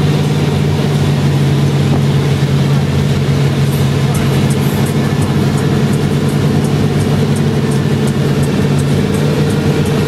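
Baja 33 Outlaw powerboat running at speed: loud, steady engine drone with an even pitch, over the rush of the churning wake water and wind.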